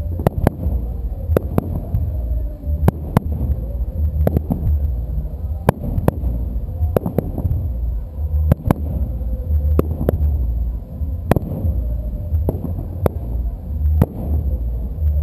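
Aerial fireworks shells bursting in rapid succession, sharp irregular bangs about two a second over a steady low rumble.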